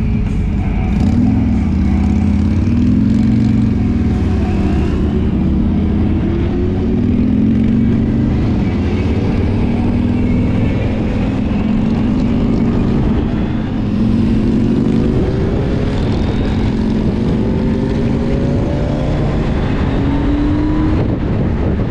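Motorcycle engine pulling away from a stop and accelerating through the gears, its pitch rising several times in a row, over road and wind noise.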